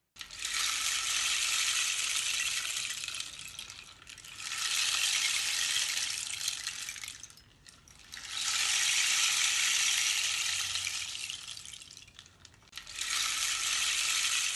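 Rain stick (pau-de-chuva) turned over four times: each turn sends a long rush of grains trickling down the tube, swelling and fading over three to four seconds. The sound imitates falling rain.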